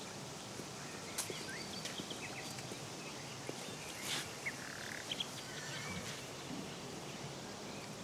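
Outdoor park ambience: a steady background hiss with scattered short bird chirps.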